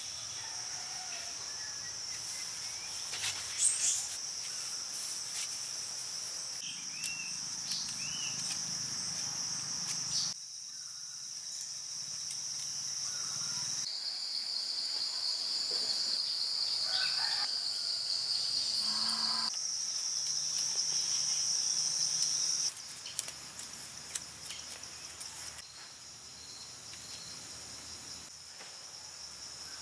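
Steady high-pitched drone of a chorus of insects, its pitch and loudness changing abruptly a few times. A few faint short chirps come through about a third of the way in.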